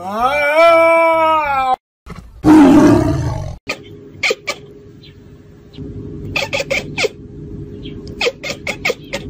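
A cat's long yowl that rises and then holds, followed by a loud, harsh hissing snarl. Then a kitten chatters in short clicky bursts of several quick calls, over a steady low hum.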